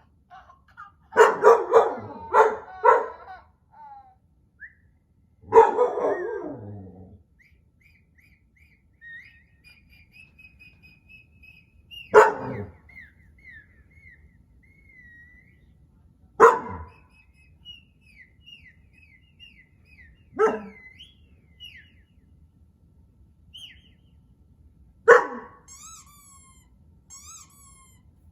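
Dalmatian barking: a quick run of four sharp barks, another bark-and-growl a few seconds later, then single barks every four seconds or so. Between the barks come faint, high, wavering chirps and whistles, which are the strange sounds the dog is barking at.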